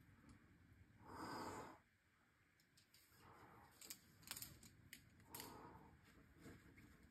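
Near silence broken by a person's hard breathy exhale about a second in and softer exhales a few seconds apart, with a few faint clicks in the middle.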